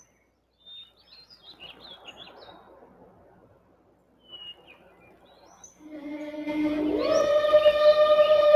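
Birds chirping sparsely over a faint outdoor background. From about six seconds in, music fades up with long held notes, one of them sliding upward about a second after it begins.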